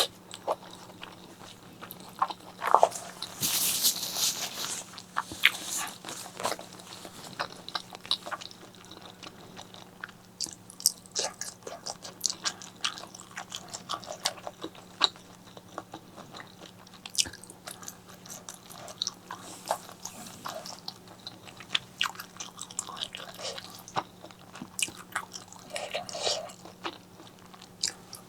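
Close-miked eating of spicy pork leg curry with eggplant and rice: chewing and biting with many sharp wet mouth clicks and smacks, a denser crunchy stretch about three seconds in. A faint steady low hum runs underneath.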